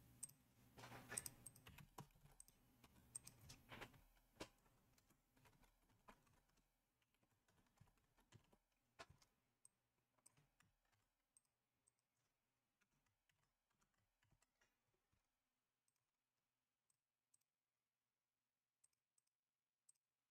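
Near silence: room tone with a few faint clicks in the first few seconds.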